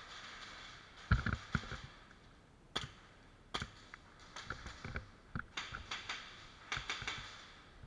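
Irregular sharp clicks and knocks, about a dozen, from airsoft play in a warehouse arena, over a rustling hiss. The loudest knock comes about a second in, and a cluster of them comes near the end.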